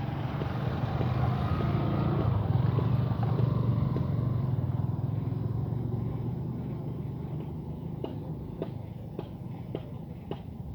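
A motor vehicle engine running, growing louder about two seconds in and then fading away, with a few sharp clicks near the end.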